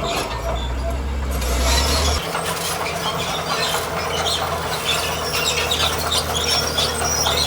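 Bulldozer running, its diesel engine droning low, with the steel tracks squealing and clanking in short high squeaks throughout. The low drone eases off about two seconds in.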